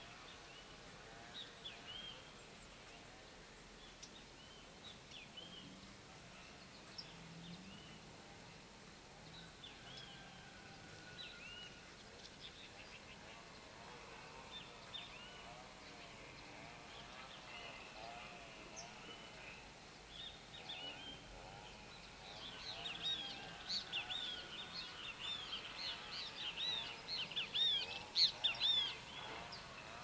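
A flock of small seed-eating birds calling with short, high chirps while they feed on the ground. The chirping grows denser and louder over the last third.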